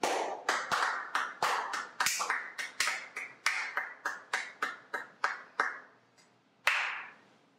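Two people clapping their hands in a small room, an even run of sharp claps at about four a second that stops a little over halfway through, followed by one last clap about a second later.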